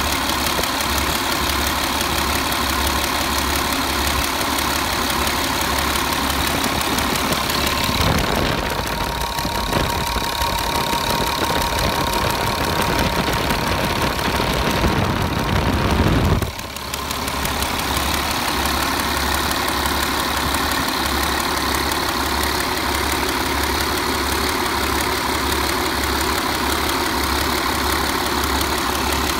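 Caterpillar 3126 inline-six diesel truck engine idling steadily on a test run, with an even, rhythmic diesel beat. For about eight seconds in the middle the sound shifts, with a faint steady whine, as the microphone moves in close to the engine, then it cuts back to the earlier sound.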